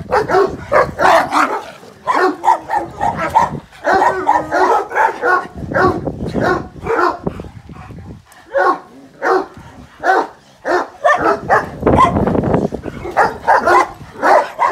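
Dogs barking in fast, repeated runs, about two or three barks a second with hardly a pause: a Dogo Argentino on its chain and a Kangal worked up during rope tug-of-war play.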